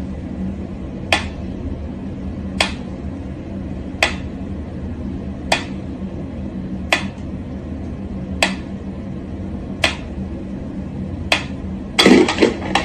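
Mechanical pyramid metronome ticking slowly and evenly, about one tick every second and a half. Near the end there is a brief, louder clatter as a cat paws at the metronome.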